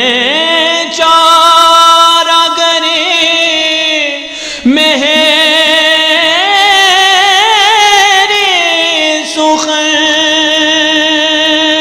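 A male voice singing a naat in long drawn-out, ornamented notes whose pitch wavers and glides, over a steady held note beneath. The line breaks briefly about halfway through, then resumes.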